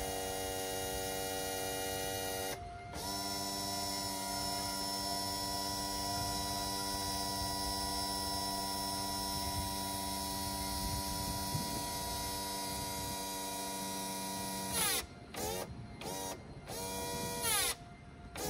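Volvo Penta SX-A sterndrive's electric power trim/tilt pump motor running with a steady whine as it tilts the drive. It stops briefly about three seconds in, and near the end runs in several short bursts as it is switched on and off. The pump has just been repaired by cleaning its motor and is working.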